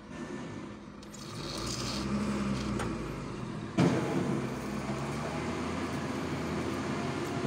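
A steady motor drone builds up about a second in and runs on. Near the middle comes a single sharp metallic clank as the bolo blade is laid onto the charcoal forge.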